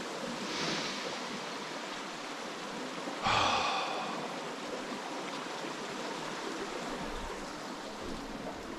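A sharp exhaled breath about three seconds in, over a steady rushing background noise.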